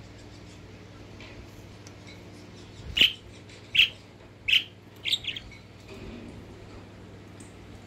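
A female kakariki (New Zealand parakeet) giving four short, sharp calls about three-quarters of a second apart, starting about three seconds in; the last call is doubled.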